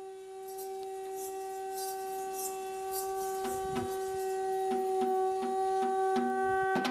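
A wind instrument holding one long, steady note. Faint percussion strokes come in about halfway through.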